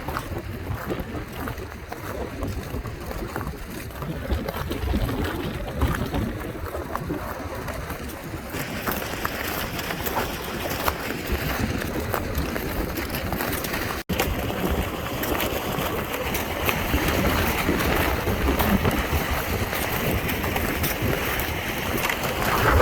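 Strong gusting wind buffeting the microphone: a loud, uneven low rumble with a broad hiss over it, the hiss growing brighter about a third of the way in.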